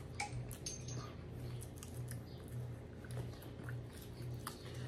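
A man chewing chicken nuggets, with soft scattered clicks and mouth sounds, over a faint low hum that pulses about twice a second.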